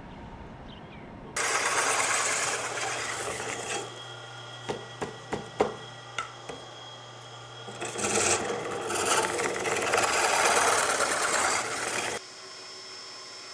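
A motor-driven boring rod reams out the inside of a bamboo dongxiao tube: a harsh, loud scraping whir over a steady motor hum, with a handful of sharp knocks in the middle. The scraping stops suddenly about twelve seconds in, leaving only a lower hum.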